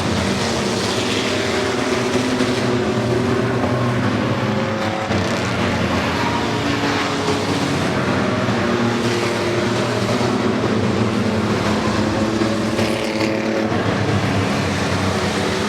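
Engines of several racing trucks running together around a short oval track, their overlapping engine notes rising and falling in pitch.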